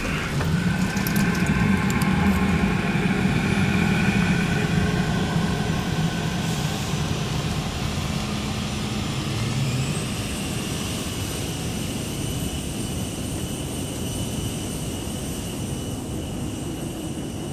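Jet airliner engines running: a steady rushing drone with a low hum that fades about halfway through, when a high whine rises and then holds steady.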